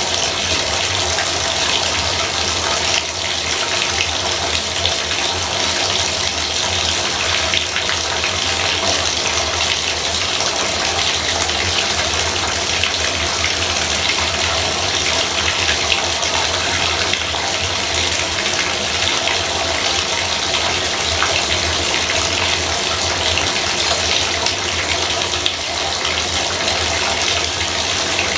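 Bathtub faucet running, a steady even gush of water.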